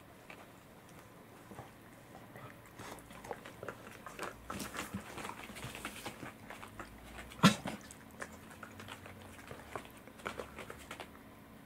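A cat chewing grilled saury, an irregular run of small crunches and wet clicks from the fish and its bones, with a dog licking its lips close by. One sharp knock about seven and a half seconds in is the loudest sound.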